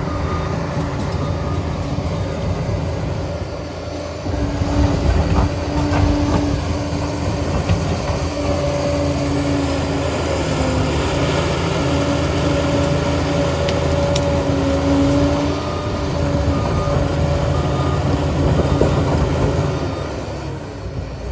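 Liebherr PR 746 crawler dozer running: a steady engine drone with a held whine that wavers slightly in pitch. It gets louder about four seconds in.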